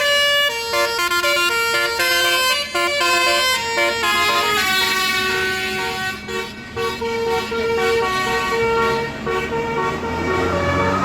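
Basuri telolet horn on an Indonesian coach bus playing a tune: several pitched horn tones sound together and step quickly from note to note, then hold longer notes in the second half. A low engine rumble runs underneath near the end.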